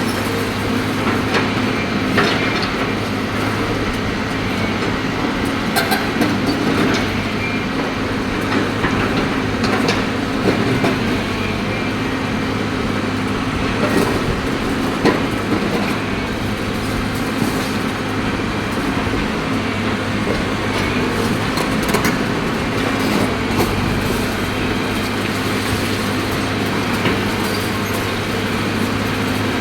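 Caterpillar hydraulic excavator's diesel engine running steadily under load, with scattered clanks and knocks as it breaks up concrete.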